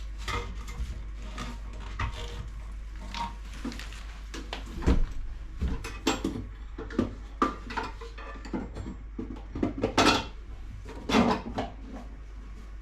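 Hard plastic toilet flush-valve and cistern parts being handled and fitted into place: irregular clicks and knocks, with a few louder knocks about halfway through and near the end.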